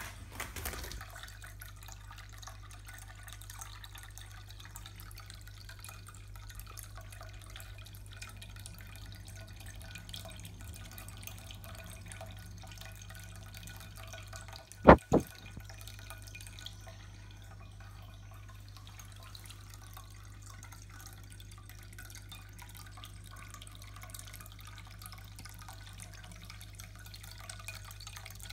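Water from a PetSafe Drinkwell ceramic pet fountain trickling and dripping steadily into its bowl, with a steady low hum underneath. About halfway through come two sharp clicks in quick succession, the loudest sounds here.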